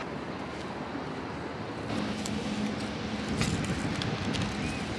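Seaside outdoor ambience: a steady rush of wind and surf. About two seconds in, a steady low hum joins it, with a few faint clicks.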